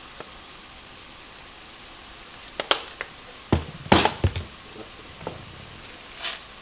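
Plastic spice jars being handled and set down on the counter: a few sharp clicks and knocks, the loudest about a third of the way in and just past the middle. Under them, a faint steady sizzle of ground beef browning in the frying pan.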